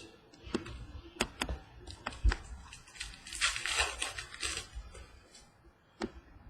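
Hands handling trading cards and their packs: a few sharp taps and clicks of cards against a table, then about a second and a half of crinkly rustling about three seconds in.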